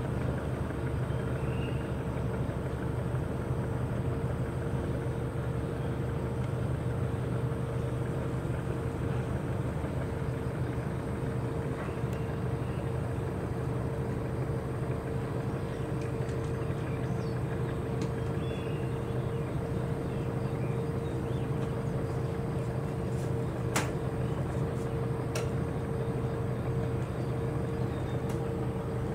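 Steady low mechanical hum with a constant mid-pitched tone running through it, unchanged throughout, and two faint clicks near the end.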